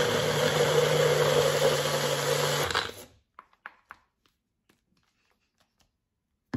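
Nutribullet blender motor running steadily while grinding a thick frozen-fruit smoothie, then cutting off about three seconds in. Its owner wonders whether the mix is too frozen for this blender, or the blender a little weak. Faint clicks of the plastic cup being handled follow.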